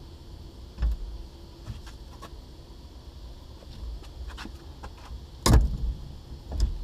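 Light metal clinks of a 19 mm socket and breaker bar on the steering-wheel nut, with a loud sharp crack about five and a half seconds in and a softer knock near the end: the nut breaking loose.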